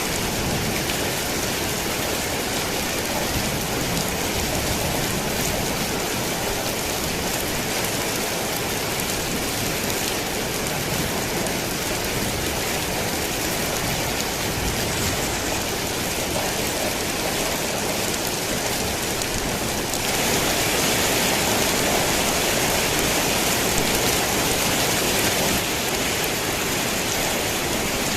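Steady rain drumming on a tin roof, a dense even hiss, growing heavier for about five seconds about two-thirds of the way through.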